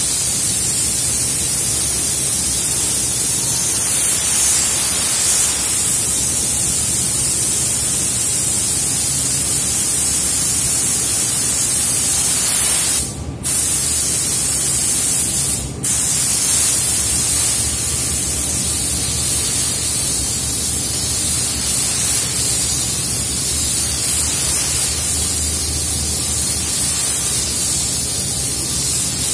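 Gravity-feed paint spray gun hissing steadily as compressed air atomises silver paint onto a car fender, over a steady low hum. The hiss cuts out briefly twice, about halfway through.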